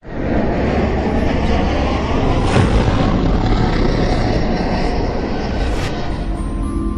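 A loud, steady rumbling noise that starts abruptly.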